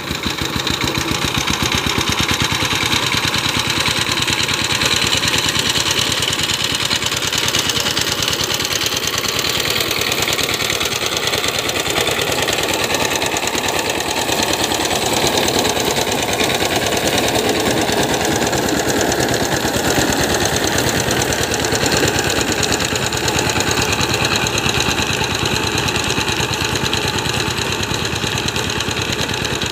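Single-cylinder diesel engine of a two-wheel walking tractor (power tiller) running steadily with a rapid, even chugging as it pulls cage wheels and a rotary tiller through a flooded rice paddy.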